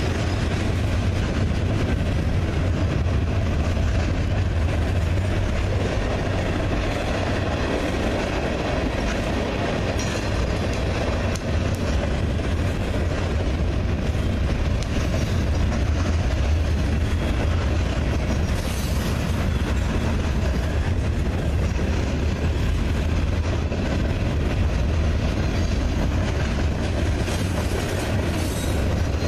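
Freight train cars rolling past at close range: a steady heavy rumble of steel wheels on the rails with clattering from the cars, and faint high wheel squeals now and then.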